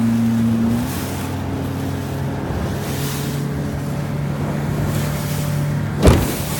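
A motorboat's engine runs steadily under wind and water noise, its note changing about a second in. A sharp thump comes near the end.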